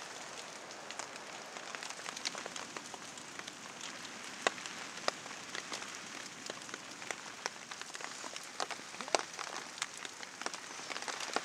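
Steady rain, with many individual drops landing in sharp, irregular ticks.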